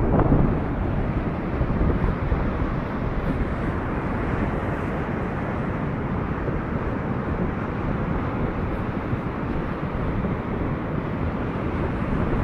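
Floodwater rushing past in a steady low noise, with no distinct events.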